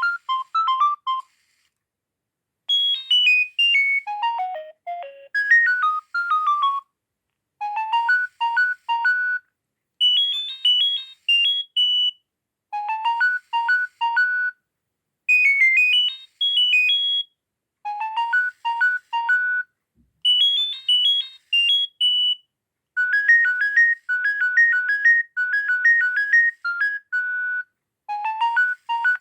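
Nokia 6610 mobile phone ringtone playing: a thin electronic melody of quick, clean notes in short phrases, each broken off by a brief silence, with some phrases repeating.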